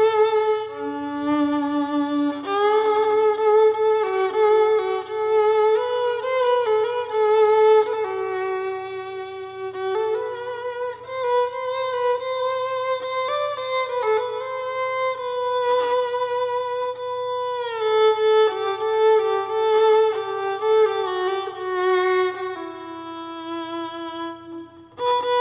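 Solo violin playing a slow melody of long held notes, with a downward slide from one note to the next about two-thirds of the way through.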